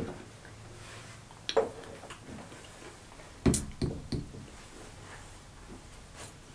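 A few light knocks and clicks as a plastic water bottle is handled on a table: one about a second and a half in, a sharper cluster of three around three and a half to four seconds, and a faint one near the end.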